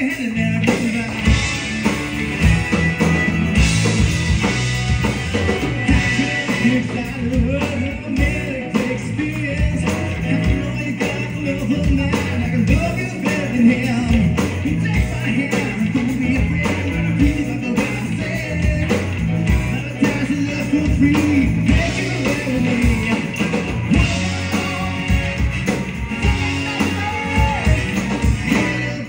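A live rock band playing a song: a singer over electric guitar, bass guitar, keyboard and drum kit.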